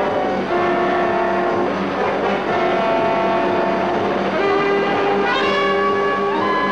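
Orchestral score with brass, trombones and trumpets, playing long held notes that swell upward near the end.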